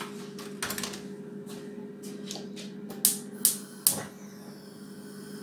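Light, scattered ticking from rice cooking in a pot on a gas hob, over a steady hum. About three seconds in come three sharp clicks in quick succession from the hob's control knobs.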